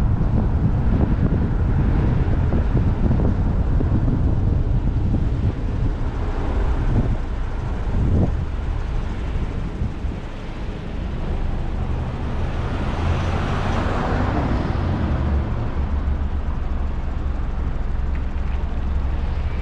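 Steady low rumble of vehicle and traffic noise, with a broad hiss that swells and fades about two-thirds of the way through.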